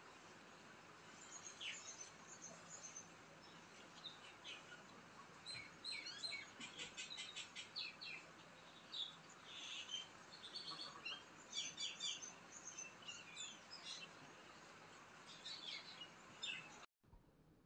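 Faint, scattered high chirps of small birds over a low background hiss, with a quick run of chirps about six to seven seconds in; the sound cuts off shortly before the end.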